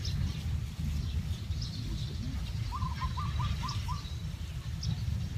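Birds calling: a quick run of five short rising chirps about midway, with thin high chirps scattered around it. A steady low rumble runs underneath.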